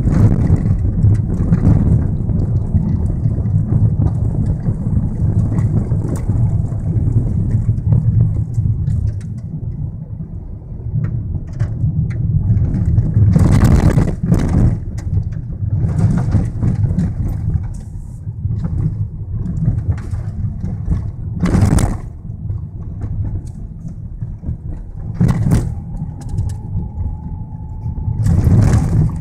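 Car interior noise while driving on a gravel track: a steady low engine and tyre rumble, broken by a few short louder bursts of noise as the car goes over rough ground. A faint steady whine comes in for a couple of seconds near the end.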